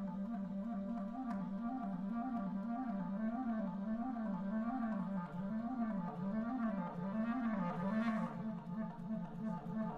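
Solo clarinet holding a low note and bending its pitch up and down in slow, even waves, about one and a half a second, the bends growing wider midway. There is a short hiss about eight seconds in.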